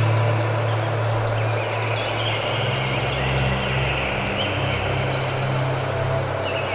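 Electronic ambient drone soundscape: steady low humming tones under a high whooshing sweep that sinks and fades, then swells back up about five seconds in.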